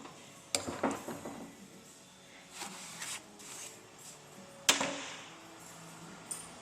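Hand tools and metal parts working at a fuel filter bracket: a few light clicks, a scraping rustle, then one loud sharp metallic knock with a short ring about three-quarters of the way through.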